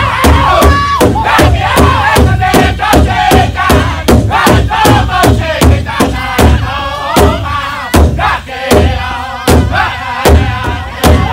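Powwow drum group of men singing in high, wavering voices in unison while striking one large shared bass drum together in a steady beat of about three strokes a second.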